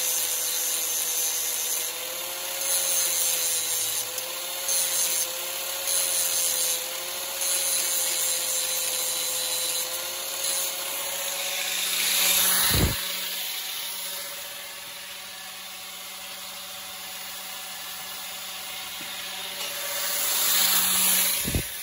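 Angle grinder sharpening the steel cutter teeth of a hedge trimmer blade: a steady motor whine under grinding that comes and goes in short bursts as the disc meets each tooth. About 13 seconds in a knock is heard and the grinding stops, leaving a quieter sound that swells again near the end, where there is another knock.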